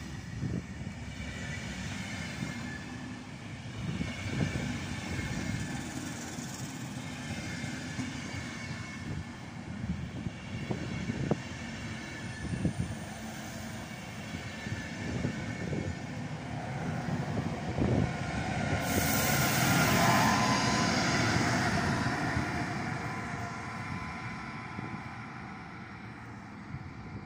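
An Intercity train running past: the coaches' wheels rumble and click over the rail joints, then the DB class 101 electric locomotive pushing at the rear goes by, the loudest part, about two-thirds of the way through with a hissing rush. The sound then fades as the train pulls away.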